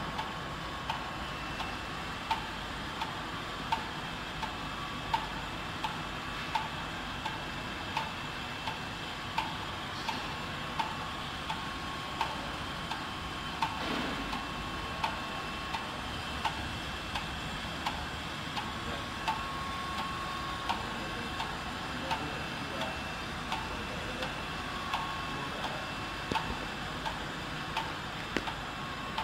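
RFID dry inlay laminating machine running: a steady mechanical hum with a sharp click repeating about every 0.7 seconds, and a faint steady whine.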